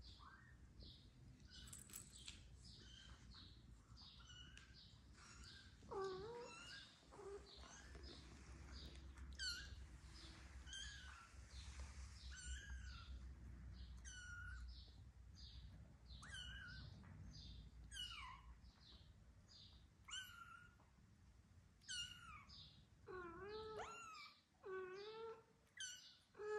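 Kittens mewing over and over, short high-pitched calls about once or twice a second. A few lower, longer meows join in near the end.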